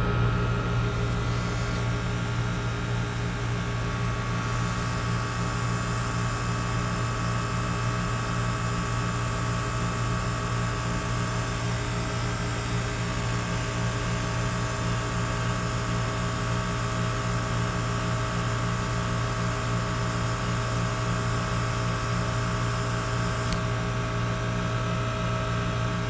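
1987 Bryant 1.5-ton heat pump running steadily through its defrost cycle: a compressor hum with several steady tones over it. It eases slightly about a second in.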